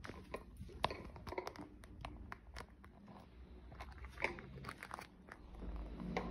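Sneakers walking on an old hardwood floor: faint, irregular clicks, creaks and crunches of steps and grit underfoot, with a low rumble building near the end.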